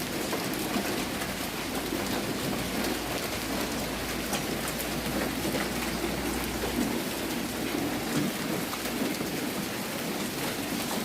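Heavy downpour of rain mixed with hail, a steady hiss of water with scattered small impacts on surfaces. A low rumble runs under it for most of the first seven seconds and briefly again about eight seconds in.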